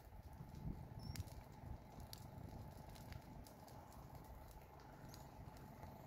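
Faint, irregular crackling and snapping of dry grass and scrub burning in a wildfire, a few sharp snaps standing out over a low rumble.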